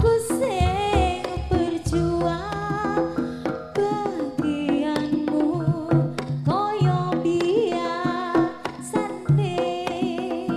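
A female sinden sings an ornamented Javanese jaranan melody with gliding, bending notes. Gamelan instruments and repeated hand-drum strokes accompany her.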